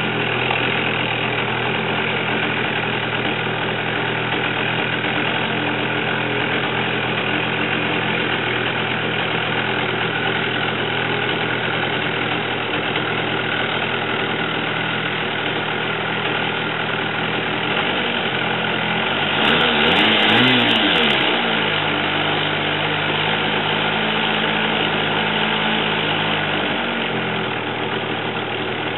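Small single-cylinder model airplane engine running steadily with its propeller turning, on its first run. About two-thirds of the way through its pitch swings up and down and it briefly gets louder, as if throttled up and back, then it settles again; near the end its lower note drops away.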